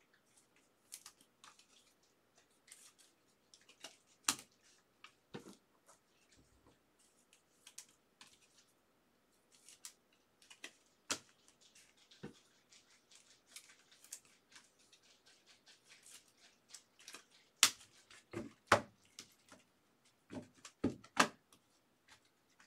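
Trading cards being slid into card sleeves and handled on a tabletop: scattered light clicks and rustles, growing louder in the last few seconds.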